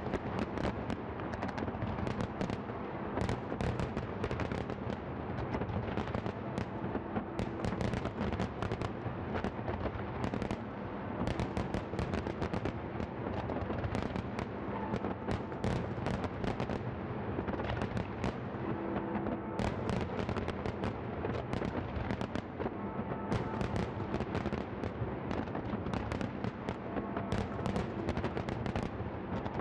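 Fireworks display: aerial shells bursting in a dense, continuous barrage of many bangs and crackles a second, with no pauses.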